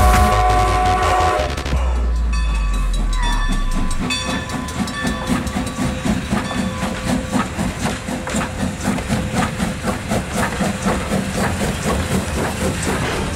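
Steam locomotive passing close: its whistle sounds a held chord that stops about a second and a half in. Then comes the rhythmic chuffing of the engine's exhaust and running gear as it works by, at about two to three beats a second.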